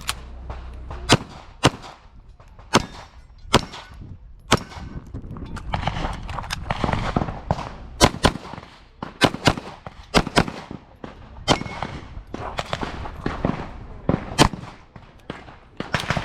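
Pistol shots fired during an IPSC practical-shooting course of fire: irregular single shots and quick pairs, with short gaps between strings as the shooter moves or changes targets.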